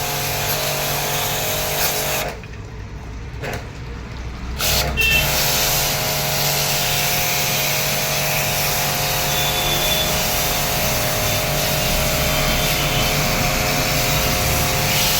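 A washing machine running: a steady motor hum with a whirring hiss. It drops away about two seconds in and starts up again about two seconds later.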